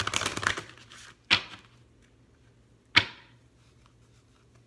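A deck of oracle cards being shuffled by hand: a quick patter of card clicks for about a second, then two sharp card taps about a second and a half apart.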